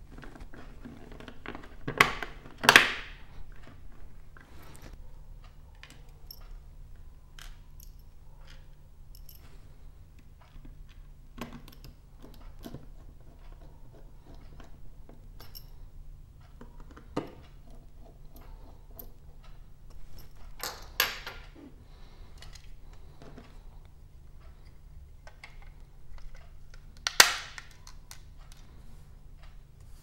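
Plastic clicks, snaps and knocks as the back plate and housing of a Sonoff NSPanel Pro are fitted together by hand, with small scrapes and ticks between. The sharpest snaps come about two to three seconds in and near the end, with smaller ones around the middle.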